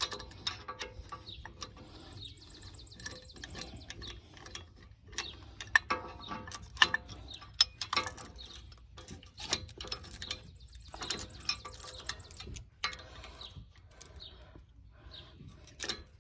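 Irregular metallic clicks and clinks as a C-clamp is fitted over a brake caliper and its screw turned to seat an old brake pad snugly against the caliper piston.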